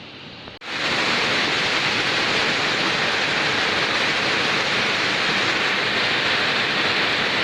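Rain hissing softly, then about half a second in a sudden cut to a much louder, steady heavy downpour.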